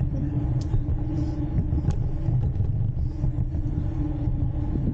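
Riding noise on a Jetson Bolt Pro electric bike: a steady low rumble of wind on the microphone and tyres rolling on concrete, with a steady hum that fades in and out.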